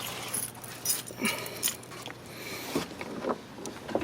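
Scattered handling noises: rustling with light clicks and knocks, coming in short irregular bursts.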